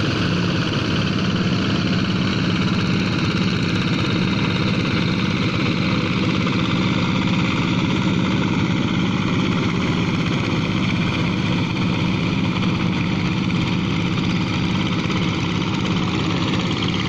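Single-cylinder diesel engines of two-wheel hand tractors running steadily while plowing wet paddy mud, an even, rapid beat that does not change.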